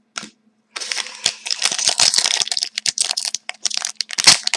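Foil wrapper of a hockey card pack being torn open and crinkled. A dense crinkling starts about a second in and breaks up into separate crackles later on.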